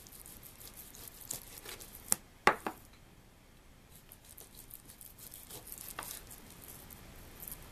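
A large kitchen knife slicing raw beef tenderloin into steaks on a wooden cutting board: soft cutting sounds and small clicks, with two sharp knocks of the blade on the board about two seconds in, half a second apart.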